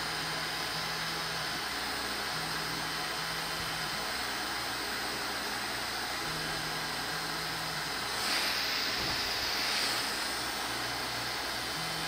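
Electric heat gun running, a steady rush of fan and blown air as it heats shrink tubing over a wire splice; the rush gets louder for about two seconds some eight seconds in.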